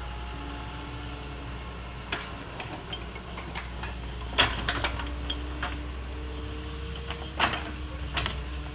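Doosan 140 wheeled excavator's diesel engine running steadily, with a held hydraulic whine over it and sharp clanks and knocks of the digging work, the loudest about four and a half and seven and a half seconds in.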